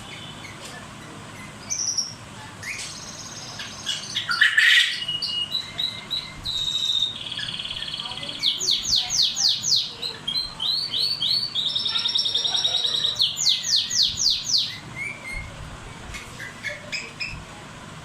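Pet birds chirping and singing: high trills and runs of quick repeated sweeping notes, loudest from about eight to fifteen seconds in, with a loud sweeping call around four to five seconds in.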